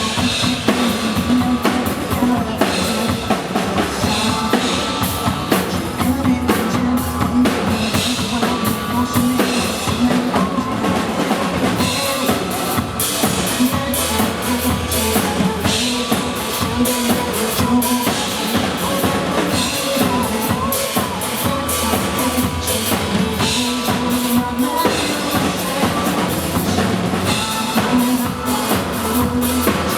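Music with a drum kit keeping a steady beat, bass drum and snare prominent.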